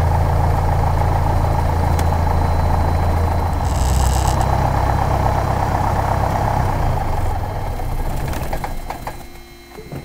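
Piper Warrior's four-cylinder piston engine idling with its propeller turning, then shut down: the low engine note sinks and dies away about eight to nine seconds in as the propeller stops.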